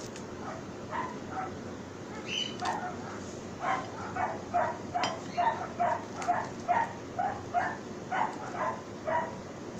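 Dog barking in short repeated yaps: a few scattered ones, then a quick run of about a dozen, roughly two a second, near the end.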